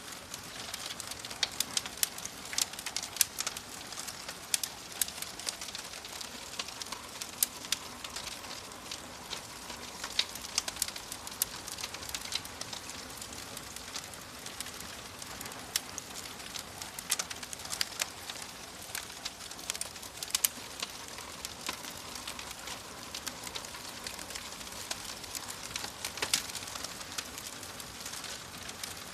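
Wood fire crackling in a fireplace: irregular sharp pops and snaps over a steady hiss.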